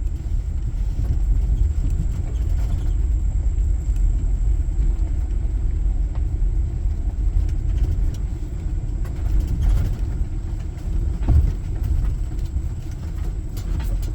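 Car moving slowly over a rough dirt road: a steady low rumble of engine and tyres, with a few short knocks from the bumps.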